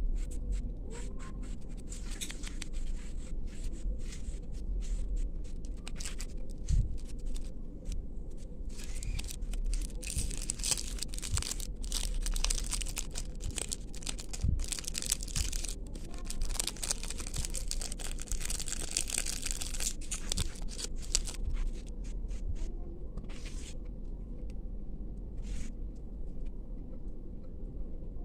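Wrapping being torn open and crinkled close up: a long run of rustles and small clicks, busiest in the middle of the stretch, over a steady low hum.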